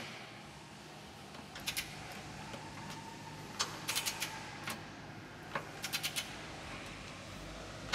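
Socket wrench ratchet with a 17 mm socket clicking in several short runs of quick clicks as it is swung back and forth, running down a rear subframe bolt.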